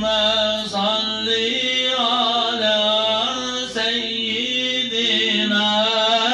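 A man's solo melodic Islamic recitation, chanted on long, wavering held notes with brief pauses for breath.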